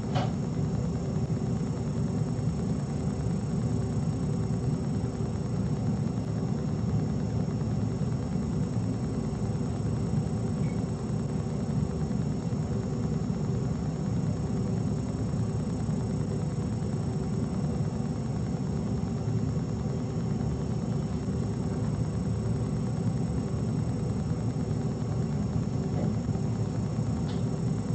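Steady low hum and rumble with a constant hiss, the unchanging background noise of a room picked up by a camera microphone. There is a faint tick near the end.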